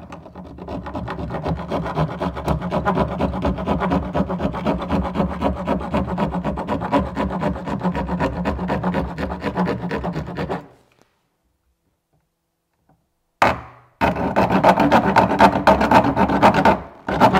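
Large serrated knife sawing back and forth through the plastic cockpit rim of a kayak, the hollow hull droning with each rapid stroke. The sawing stops about ten and a half seconds in and starts again about three seconds later.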